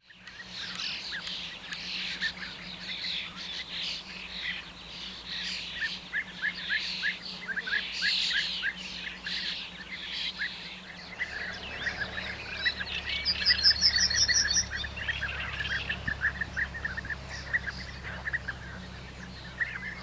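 A group of European bee-eaters calling: many short calls, repeated and overlapping. A brief rapid high trill comes in about two-thirds of the way through.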